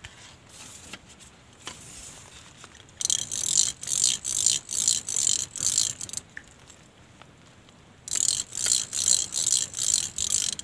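Cicada calling in two bouts of loud, rapid pulses that rasp high in pitch, about three a second. The first bout starts about three seconds in and stops after nearly four seconds; the second starts again about eight seconds in.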